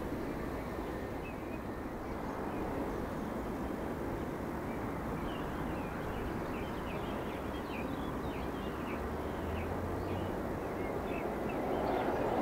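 Steady outdoor rumble with scattered short bird calls through the middle. Near the end a broader rumble swells as the LMS Princess Coronation class Pacific steam locomotive 46233 and its coach run onto the bridge.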